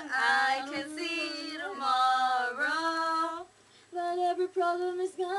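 Girls singing a slow pop song, holding long, sliding notes, with a short break for breath about three and a half seconds in before the next note.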